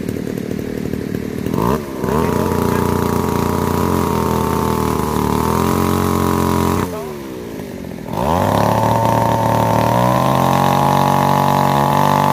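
Gasoline chainsaw sawing into a wooden log. It idles, then runs at full throttle twice for about five seconds each, dropping back to idle in between.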